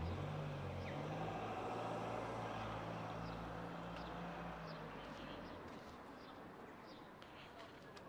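A motor vehicle's engine running close by, a low steady hum that fades away after about five seconds, over street background noise.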